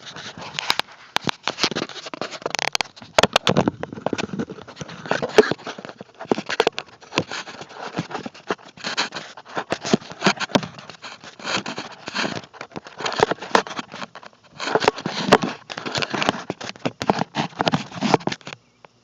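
Heavy rain pattering and crackling in a dense, uneven stream of sharp hits. It starts suddenly and cuts off just before the end.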